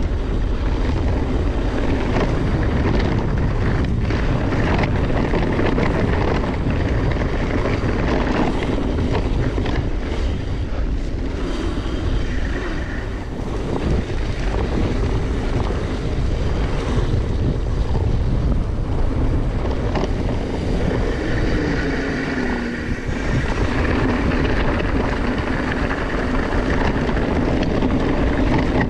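Mountain bike ridden over a rough trail, heard on a bike-mounted action camera: a steady rush of wind on the microphone and tyre noise, broken by frequent short knocks and rattles from the bike.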